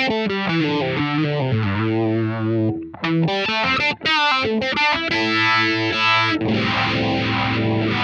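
Electric guitar played through a DOD Phasor 201 phaser pedal, with a distorted tone. A run of notes and chords, then a held chord from about six and a half seconds in, its tone sweeping up and down about once a second.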